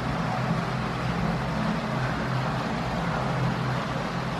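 Steady low machinery hum with an even hiss, unchanging throughout.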